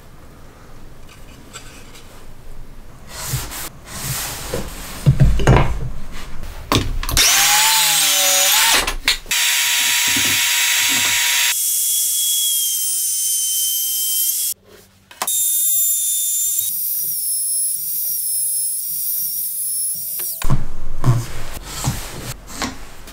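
Knocks and handling of wood, then a compact trim router running at high speed with a steady high whine for about twelve seconds, cutting out briefly in the middle. Near the end, more knocks and handling noise.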